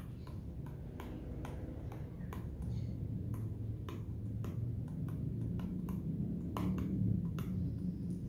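Stylus pen tip tapping and dragging on the glass touchscreen of an Asus VivoBook TP412F while handwriting, giving irregular light clicks, a couple a second, as the tip meets the screen. A steady low hum runs underneath.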